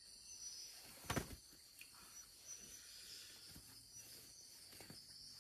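A steady high-pitched chorus of night insects such as crickets, with one sharp knock about a second in.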